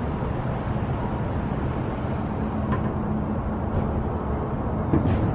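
A vehicle engine running steadily, a low rumble, with one short knock about five seconds in.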